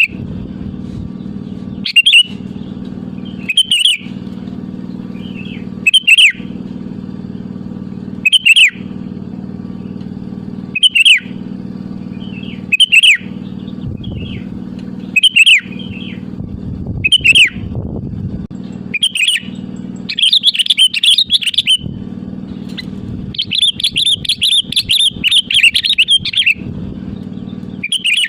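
Sooty-headed bulbul (kutilang) calling in full song: short falling phrases repeated about every two seconds, then two longer bursts of rapid chattering in the second half. A steady low hum runs underneath.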